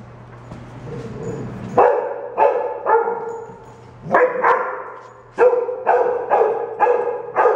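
A dog barking: about ten short, high barks, starting about two seconds in and coming in a quicker run in the second half.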